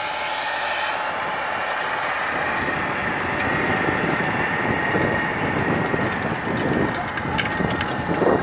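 New Holland T8 tractor's diesel engine running under load while pulling a chain-hitched leveling drag through tilled soil, with a steady high whine over the engine noise that grows slowly louder. A few sharp clicks come near the end.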